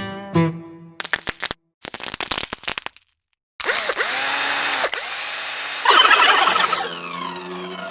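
A string of cartoon sound effects: the last struck notes of a chiming jingle, then a fast clicking rattle, a brief silence, and a long noisy whir that gets louder about six seconds in and ends on a low held tone.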